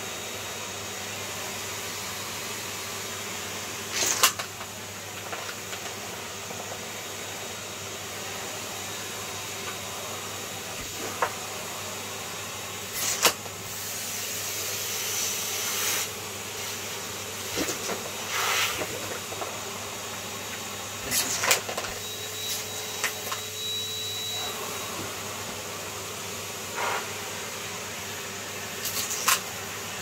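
Numatic James cylinder vacuum cleaner running steadily as its nozzle is worked over a blanket on a bed, with a few short, sharp clicks and knocks scattered through.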